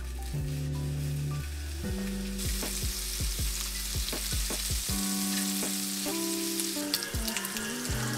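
Food frying in a hot pan: a steady sizzle that starts about two seconds in.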